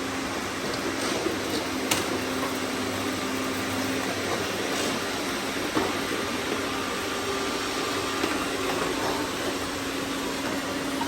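Robot vacuums running: a steady whirring hum of motors and brushes, with two sharp knocks about two seconds in and just before six seconds.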